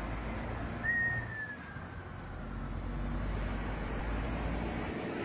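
Steady low rumble of a vehicle rolling slowly in traffic, with a short, high, slightly falling whistle about a second in.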